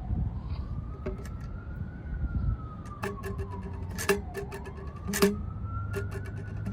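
Siren wailing, its pitch sliding slowly up and down, over a low rumble, with scattered clicks and knocks and two louder knocks near the middle.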